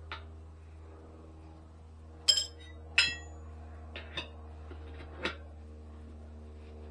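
Metal tire levers clinking against a wheel rim while a motorcycle tire is worked on. There are two sharp, ringing strikes a little after two and three seconds in, then a few lighter taps, over a steady low hum.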